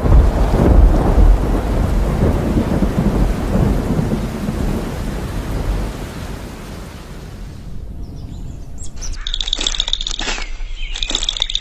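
Thunderstorm: thunder rumbling over steady rain, fading away over the first seven or eight seconds. From about nine seconds in, birds chirping take over.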